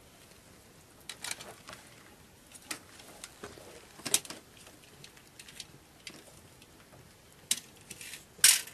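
Scattered light clicks and knocks at irregular intervals, with one louder, sharper click near the end.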